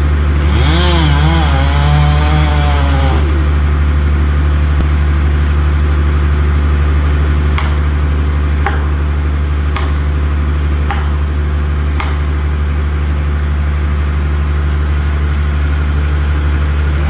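Chainsaw revving with a wavering pitch for about three seconds over a steady low engine drone. The drone then runs on alone, broken by five sharp knocks or cracks about a second apart.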